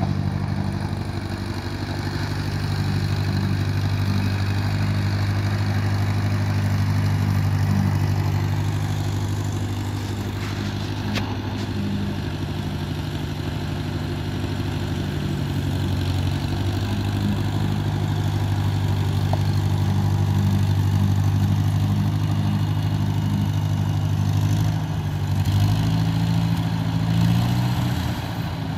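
1958 Ford 641 Workmaster tractor's four-cylinder gasoline engine running steadily at low speed as the tractor is driven around. The engine note wavers up and down a little near the end.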